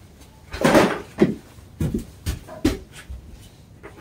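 Dogs giving short barks among knocks at feeding time, a run of loud sudden sounds about half a second apart, the loudest about a second in.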